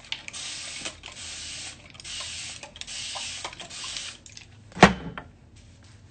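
Spray bottle misting water onto hair in about five short hissing squirts, followed about five seconds in by a single sharp knock.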